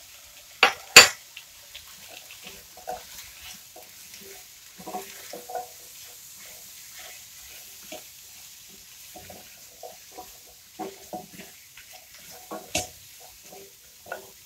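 Chopped vegetables being stirred in a stainless steel pot with a silicone spatula: scattered scraping and clacking against the pot, with two sharp knocks about a second in and another near the end.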